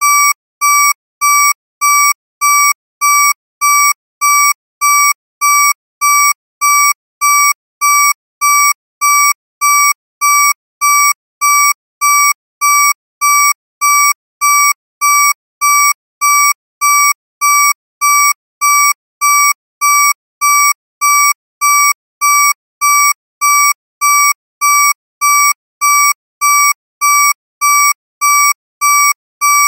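Electronic alarm beeping: short, loud, identical high beeps of one steady tone, repeating evenly at about two a second.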